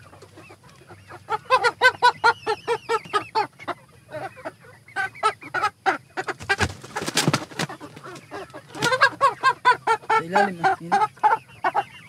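Chickens clucking in quick runs of short, repeated calls, in three bouts. A few sharp knocks come around the middle.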